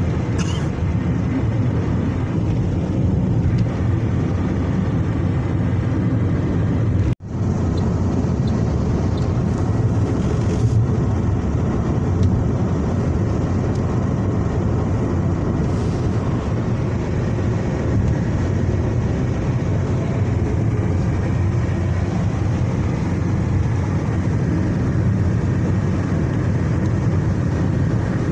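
Steady road and wind noise of a car driving at speed, heard from inside the cabin. The sound cuts out for a split second about seven seconds in.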